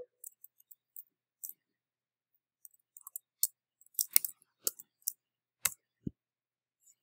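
Computer keyboard keys being typed in short irregular runs, with a pause of about a second partway through, then a louder flurry of keystrokes ending in a duller knock near the end.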